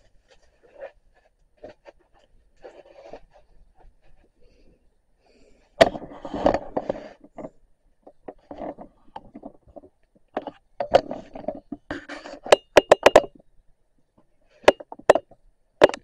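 Handling noises: scraping with a run of sharp clicks and knocks, one burst about six seconds in, a quick cluster of clicks from about eleven to thirteen seconds, and a couple more near the end.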